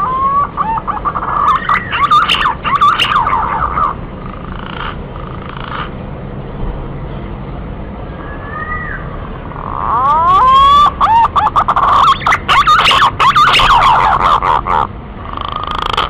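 Green pigeons (punai) calling: bouts of rising, fluty whistles mixed with crackly notes. One bout runs through the first four seconds and a louder one from about ten to fifteen seconds in.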